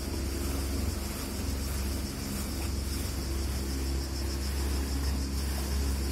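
Boat engines running steadily with a low, even hum, over the rush of water past the hulls.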